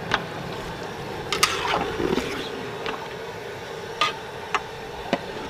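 A long metal stirring rod working through a large pot of thick chicken korma masala: wet squelching, with several sharp knocks of the metal against the pot.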